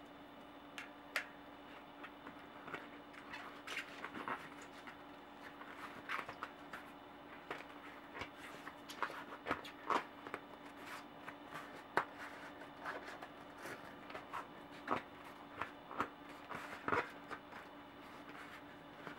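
Hands working a Maxxis Raze tyre's bead onto a bicycle rim, rubber rubbing and scraping on the rim with irregular sharp clicks and snaps, some from a plastic tyre lever. A faint steady hum runs underneath.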